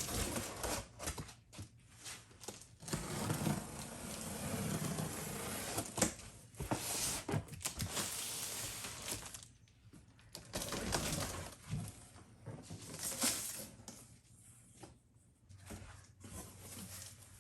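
Cardboard shipping box being opened and hands rummaging through packing peanuts: irregular rustling and scraping with many small clicks and knocks, in bursts.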